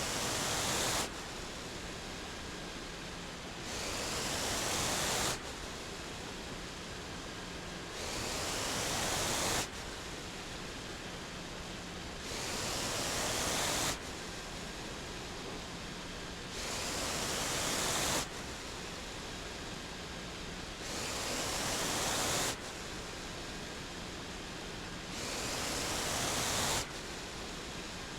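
Mechanical ventilator breathing for a person through a tracheostomy tube: a regular breath cycle, about seven breaths here, each a rush of air that swells for about a second and a half and cuts off sharply. A steady lower hiss with a faint hum fills the gaps between breaths.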